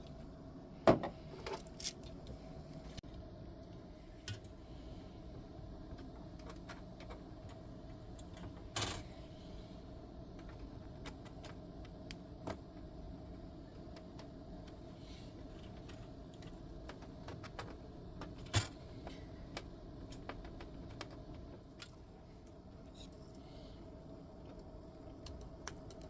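Scattered clicks and light taps of small parts being handled on a workbench, with a sharper click about a second in and a few more later, over a faint steady hum.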